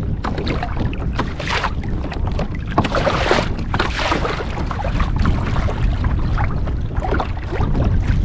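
Water splashing and lapping against a kayak in irregular short bursts, over a steady low rumble of wind on the microphone.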